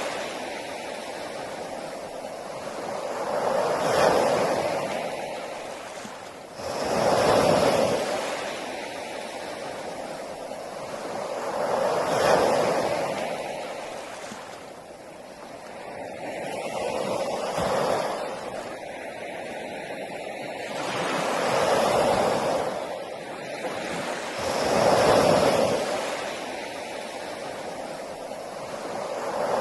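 Sea waves breaking on a beach: a wash of surf that swells and fades about every four to five seconds.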